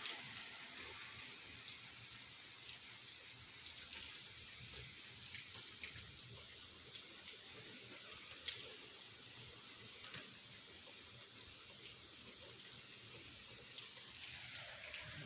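Steady rain falling: a soft, even hiss with many scattered sharper drop taps.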